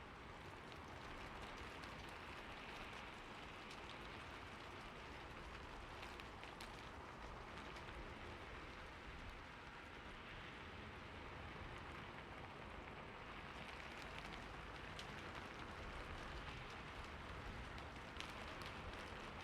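Steady rainfall pattering on a surface, with scattered individual drops ticking sharply.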